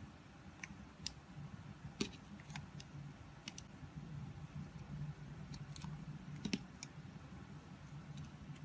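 A knife cutting into a bar of soap, giving a scattering of sharp little clicks and crackles at an uneven pace. A low steady hum runs underneath.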